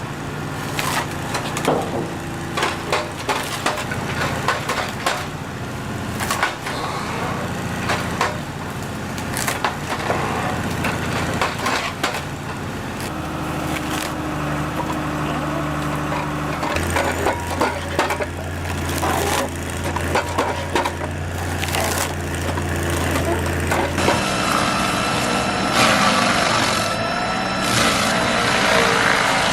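Wood cracking and splintering again and again as a machine splits firewood, with its engine running steadily underneath. Near the end the cracking gives way to a steadier machine noise.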